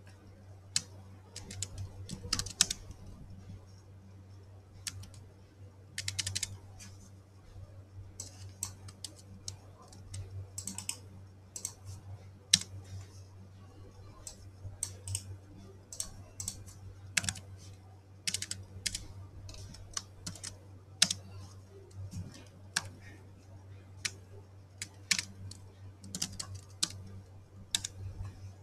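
Computer keyboard typing: irregular runs of sharp keystrokes, over a steady low hum.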